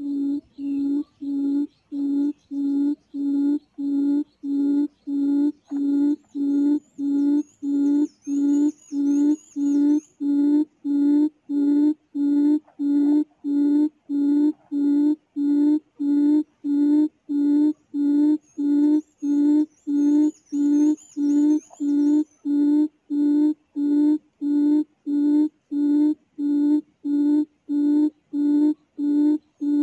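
Recorded quail call played through a speaker as a trapping lure: a low, even hoot repeated steadily about one and a half times a second.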